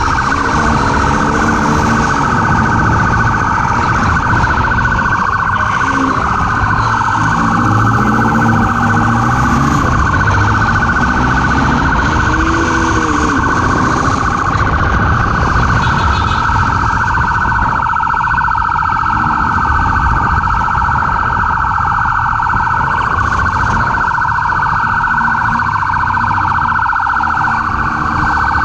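Police motorcycle siren sounding continuously with a fast warbling tone, over the motorcycle's engine and wind noise; the engine note rises and falls as the bike speeds up and slows.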